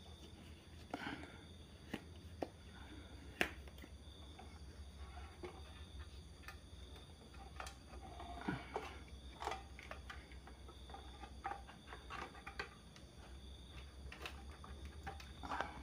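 Faint, scattered clicks and taps of hands handling a TV's circuit board, parts and wire connectors, a dozen or so irregular small knocks, over a steady low hum.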